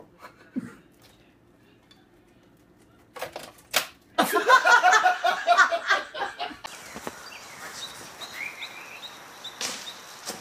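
A few sharp clicks, then a person laughing hard for about two seconds. A steady, quieter hiss follows, with a few faint high chirps.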